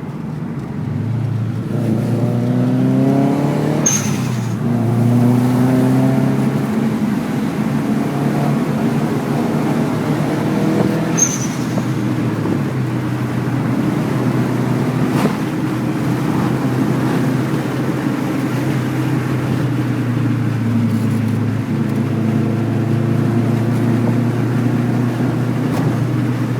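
Subaru WRX's turbocharged flat-four engine accelerating hard through the gears, its pitch climbing and then dropping at each shift, about 4 s and 11 s in. Brief sharp clicks mark the shifts.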